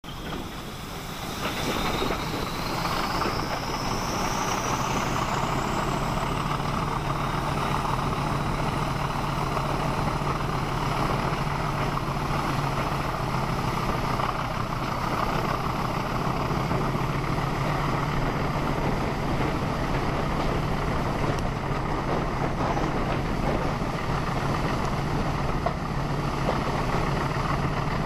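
Class 40 diesel locomotive's English Electric 16SVT engine working hard under full power, heard from a carriage window behind it, with a steady low throb and a high whistle rising in pitch over the first six seconds as it builds up. Wheel and rail noise runs underneath.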